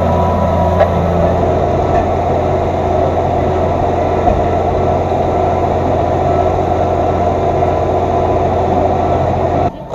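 Massey Ferguson 3115 tractor engine running steadily with a deep, even hum. It cuts off suddenly near the end.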